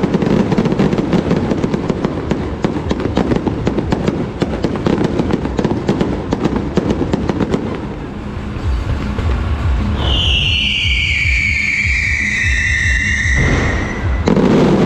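Electronically ignited fireworks going off: a rapid, dense run of crackling pops and bangs, then a long whistle falling in pitch over about three seconds, and a loud burst near the end.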